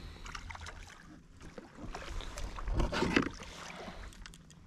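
Small knocks, clicks and rustles of fishing gear being handled aboard a plastic fishing kayak, as pliers are picked up, over a steady low rumble. A louder flurry of knocks comes about three seconds in.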